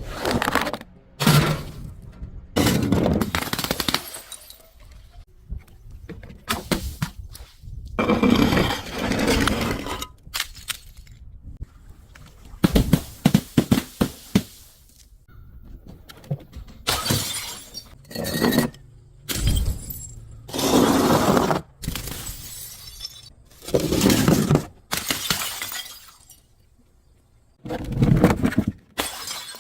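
Glass bottles breaking and being crushed: a run of crunching, shattering crashes about every one to two seconds, with a quick cluster of sharp glass clinks near the middle.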